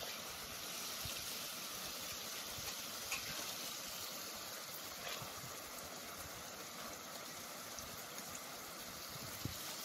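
Food sizzling in oil in a pan: a steady hiss, with a few light scrapes of a spatula against the pan.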